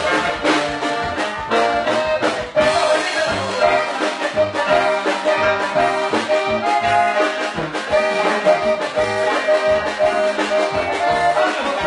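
Band music in an instrumental passage, with held melodic notes over a steady, regular beat and no singing.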